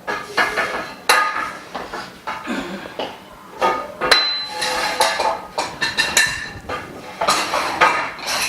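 Frame bars of a dust-free booth clinking and knocking together as they are fitted and tightened with the assembly tool, in a quick irregular series of clanks.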